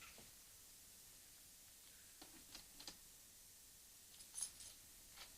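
Near silence, with a handful of faint clicks and ticks about two to five seconds in.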